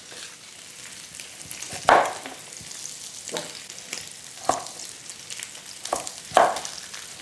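Beef short ribs sizzling steadily in an electric skillet, with five irregular knocks, the loudest about two seconds in, most likely a knife striking a cutting board while vegetables are diced.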